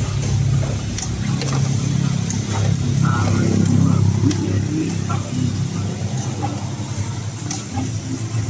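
A motor vehicle engine running, a steady low drone that swells a little around the middle. Faint light clinks of a metal spoon against the steel batter cup come through now and then.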